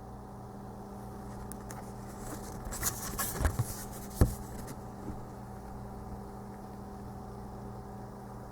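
Paper being handled: a short spell of rustling about three seconds in and a single light knock a little after, over a steady low electrical hum.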